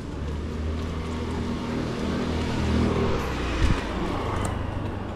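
A car passing on the street: a low engine hum under tyre and road noise that swells to a peak about three seconds in and then eases, with one brief thump soon after.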